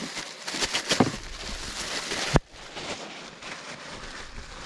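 Handling knocks and rustling on a plastic fishing kayak over a steady hiss, with a few knocks around one second in and the sharpest, loudest knock about two and a half seconds in.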